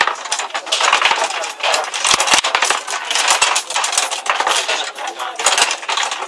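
Table football game in play: a dense, irregular clatter of sharp knocks as the ball and plastic players strike each other, the rods and the table walls.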